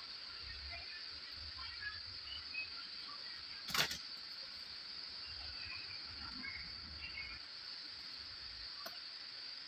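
Steady high-pitched chorus of crickets in the background, with a sharp click a little under four seconds in and a fainter click near the end.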